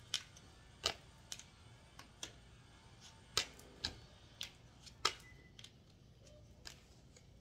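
Tarot cards being handled: about ten light, irregularly spaced clicks and taps of the card stock and long fingernails against the cards.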